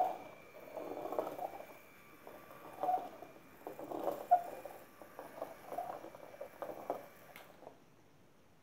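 Lego Technic legged walker stepping across a hard wooden floor: its plastic feet tap and its frame and gears clatter in groups about once a second. It falls quiet near the end.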